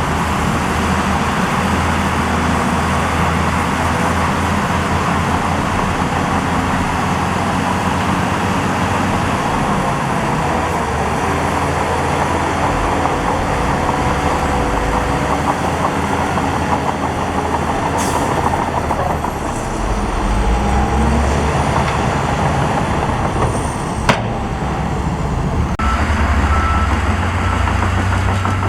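Heavy diesel construction machinery running under load, a steady deep engine rumble. There is a sharp click about four seconds before the end, and a short series of evenly spaced beeps near the end, like a reversing alarm.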